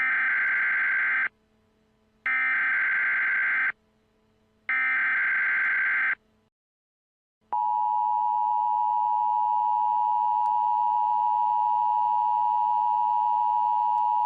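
Emergency Alert System tones: three bursts of SAME header data, each a harsh digital screech of about a second and a half with a short gap between them. About seven and a half seconds in, the steady two-tone EAS attention signal starts and holds.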